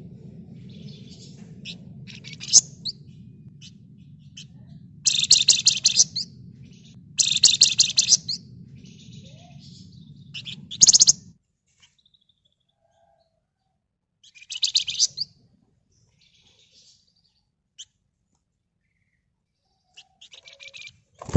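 A flamboyan songbird singing in bursts of fast, dense buzzing trills (ngebren), each about a second long, repeated about five times with short chirps between. A low steady hum underneath cuts off suddenly about halfway through.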